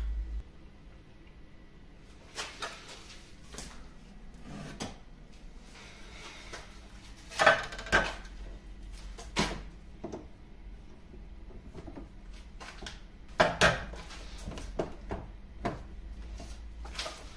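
Hand tools handled on a wooden workbench: scattered knocks and clunks of wood and metal set down on wood. The loudest come in two close pairs, about seven and a half and thirteen and a half seconds in.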